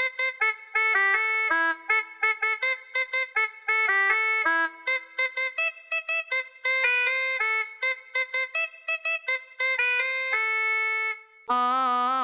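Electronic keyboard playing a quick cumbia villera lead melody of short, separate notes on a brass-like synth patch. About ten seconds in it holds one long note, breaks off briefly, and a fuller, lower patch comes in near the end.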